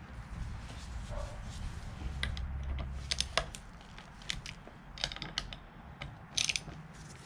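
Irregular light clicks and taps of hand tools and small metal parts being handled, bunched into a few quick clusters, over a low steady hum.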